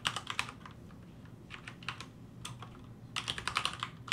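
Keystrokes on a computer keyboard: short runs of quick clicks separated by brief pauses, with the busiest run about three seconds in.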